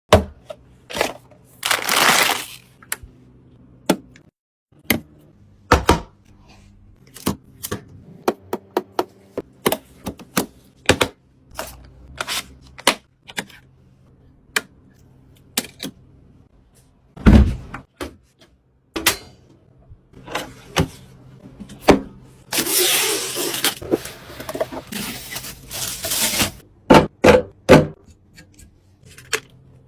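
Computer parts being handled and fitted together during a PC build: a string of sharp clicks, taps and knocks, with a heavier knock midway. There are two stretches of rustling, about two seconds in and again from about 22 to 27 seconds, over a faint steady hum.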